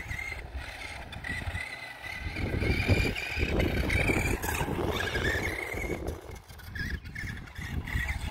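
Electric RC stadium truck running, its 27-turn brushed motor and gears giving a high whine that wavers in pitch as the throttle changes, over a rough low rumble that swells in the middle.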